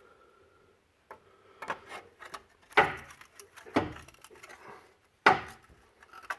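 Sharp knocks with smaller clicks between them, three loud ones about a second apart, as the corroded wheel hub is worked to break it loose.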